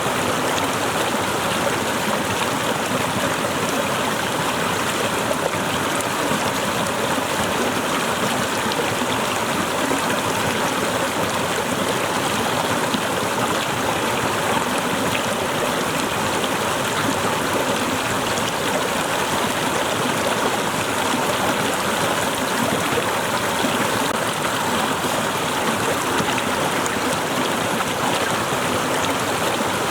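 Small waterfall splashing and rushing steadily.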